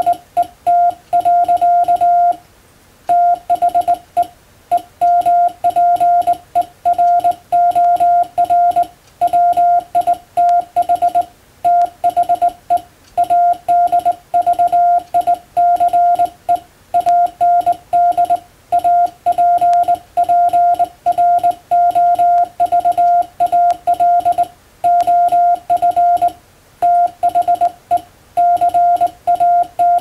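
Hand-sent Morse code (CW): a mid-pitched beep keyed on and off in dots and dashes by a straight telegraph key, sending English plain-language text at a steady operator's pace, with short pauses between words.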